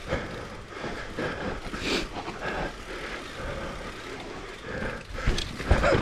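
Mountain bike riding down a dirt trail: tyre noise and the rattle and clicking of the bike, with heavy knocks a little after five seconds in.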